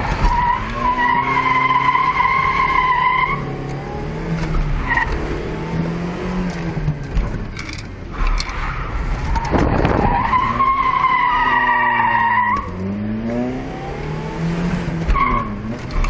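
Car tyres squealing in drifts: two long squeals of a few seconds each, with short chirps between them, over an engine revving up and down.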